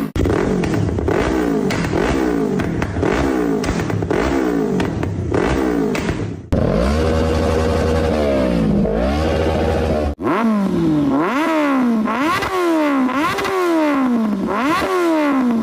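Kawasaki Ninja motorcycle engine revved in quick repeated throttle blips, each a fast rise in pitch that falls back, one to two a second. The sound cuts off abruptly and restarts twice.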